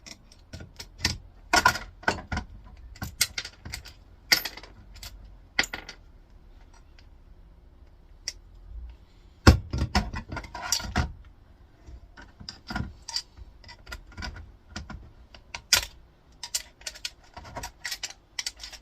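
An old screwdriver wedged and levered against tight metal washers to prise them off: a run of sharp metal clicks and clinks, with a louder knock about halfway through.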